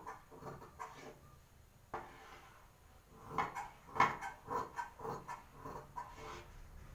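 Large tailor's shears snipping through folded blouse fabric, a series of short crisp cuts. There is a quieter stretch about a second in, then a quicker run of cuts from about three seconds in.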